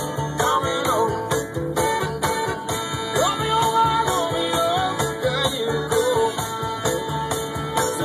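Music: a song with a singing voice over a steady beat.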